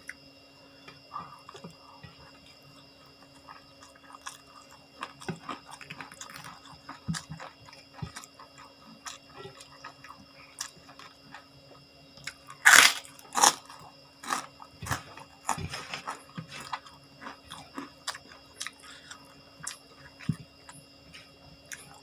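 A person biting and chewing crunchy food close to the microphone: irregular crunches and wet chewing, with the loudest, sharpest crunches about 13 seconds in and another run a couple of seconds later.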